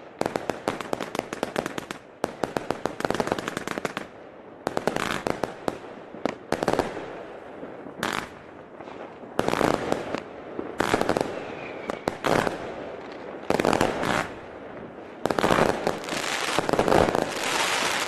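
Magnum 400 Shots Mega Display Box firework compound firing. A rapid string of shots runs through the first four seconds, then separate loud bursts follow every one to two seconds, the loudest near the end.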